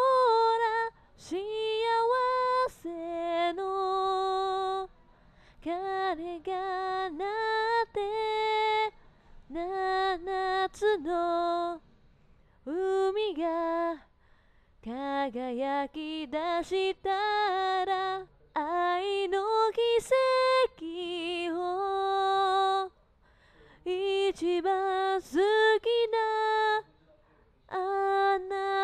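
A woman singing solo and unaccompanied, in short phrases separated by brief pauses, with a wavering vibrato on some held notes.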